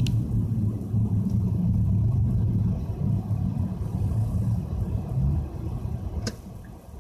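Nissan Fuga 350GT's 3.5-litre V6 with a one-off quad-outlet exhaust, heard from inside the cabin as a steady low rumble at low revs. It drops away about five and a half seconds in as the car eases off, and a single sharp click comes near the end.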